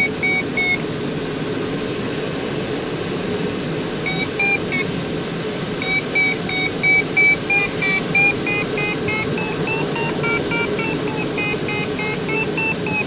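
Steady rush of airflow in a Schleicher Ka 8 glider's cockpit, with an electronic audio variometer beeping over it. A few beeps come at the start and about four seconds in, then continuous beeping from about six seconds that grows quicker and slightly higher after about eight seconds, the vario's signal of the glider climbing in a thermal.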